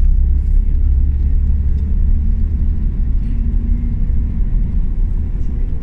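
Steady low rumble of a moving tour bus heard from inside the cabin: engine and road noise.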